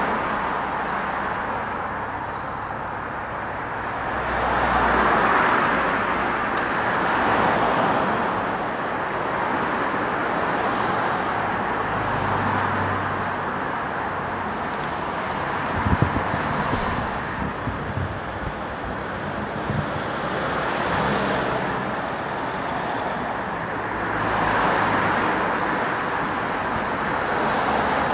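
Road traffic, cars passing one after another, heard as slow swells of tyre and engine noise. A few short low knocks come about halfway through.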